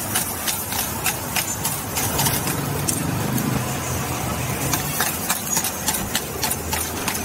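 Metal spatula clinking and scraping against a steel wok as vegetables and meat are stir-fried over a gas flame: quick, irregular strikes over a steady rushing noise.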